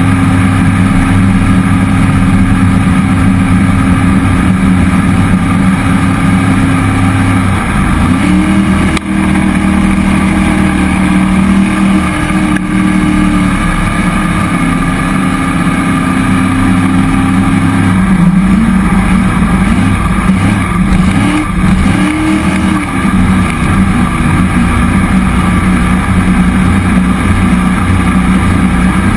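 Cammed 5.3-litre LS V8 of a jet boat running under way, loud and steady. Its pitch shifts about seven seconds in and again near the middle, then wavers up and down for a few seconds with throttle changes before settling.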